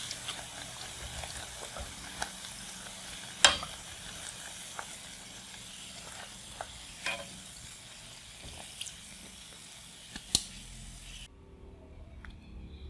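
Chicken and potato snacks frying in cooking oil, a steady crackling sizzle with a few sharp clicks, the loudest about three and a half seconds in. The sizzle cuts off suddenly about eleven seconds in.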